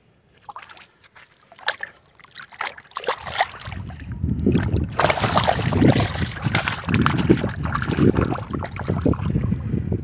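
Shallow river water splashing and sloshing as a released boga thrashes in it and swims off: a few scattered splashes at first, then from about three seconds in a continuous, louder churning of water.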